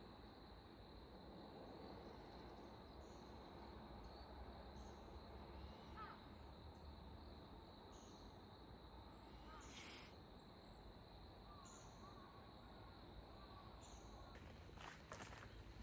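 Faint outdoor night-field ambience: insects chirping, with a steady high insect trill and short high chirps about once a second. A few soft clicks near the end.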